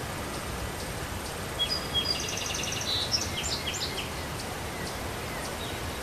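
A songbird sings one short phrase of chirps and a fast trill about a second and a half in, over a steady outdoor background hiss.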